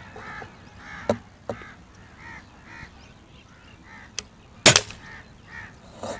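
Spring-piston air rifle (LB-600, fresh piston seal and spring) firing a single pellet about three-quarters of the way in: one sharp, loud crack. Before and after it, a bird calls over and over in the background, and there are a couple of faint clicks about a second in.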